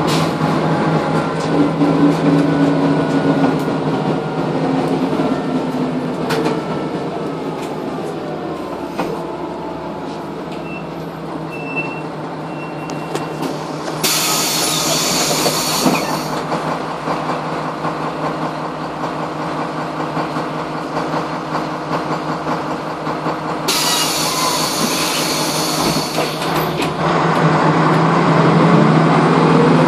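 Jelcz 120M/3 city bus heard from inside the passenger cabin: the engine and driveline whine falls as the bus slows, runs quieter for a while, then rises again as it pulls away near the end. Two spells of loud hissing, about two and three seconds long, come in the middle.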